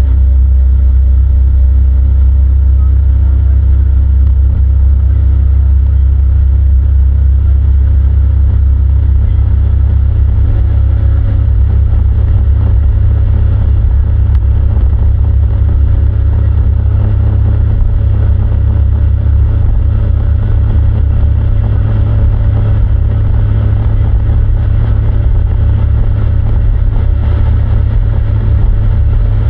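Motorboat engine running steadily with a heavy low rumble. The engine's hum is plainest in the first ten seconds or so, then becomes rougher and more fluttering.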